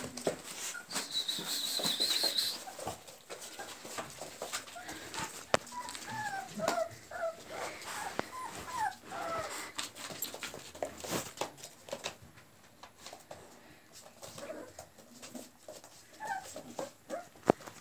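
Litter of 26-day-old American Pit Bull Terrier puppies whimpering in short, high, wavering whines, in clusters a few seconds apart. Between them come scattered clicks and rustles of small paws on newspaper and a wooden floor.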